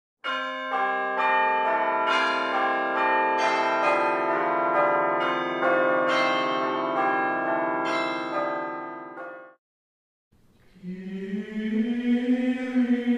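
A peal of church bells, many struck notes overlapping and ringing on, stopping abruptly after about nine and a half seconds. After a brief gap a voice begins a slow, sustained chant.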